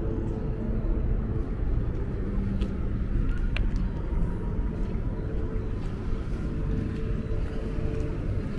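Steady low rumble with a faint steady hum through it, and a single sharp click about three and a half seconds in.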